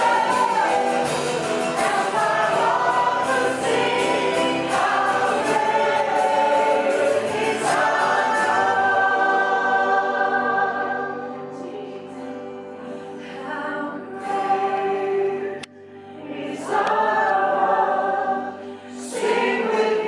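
A choir singing a hymn. The singing eases to a quieter passage about halfway through, then swells again.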